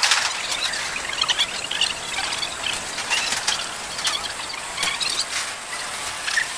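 Scattered short, high-pitched squeaks and chirps over a steady hiss, with a few sharp clicks.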